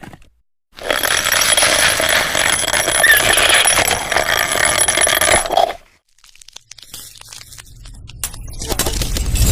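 Falling debris sound effect: a dense, continuous clattering rattle of debris lasting about five seconds, with a metallic ringing edge. After a brief drop it is followed by a sparser crackling clatter that grows louder toward the end.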